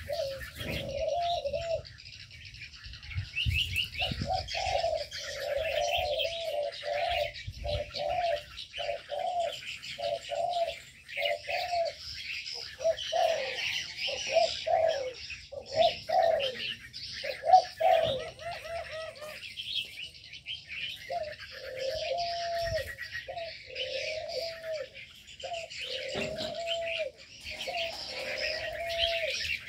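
Doves cooing over and over, with a dense chatter of small birds chirping throughout.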